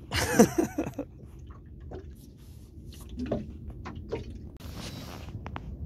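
Water sloshing and lapping against a small open fishing boat, with a steady low rumble and scattered knocks and drips. A short pitched creak or squeal in the first second is the loudest sound, and a brief splash-like hiss comes about three-quarters of the way through.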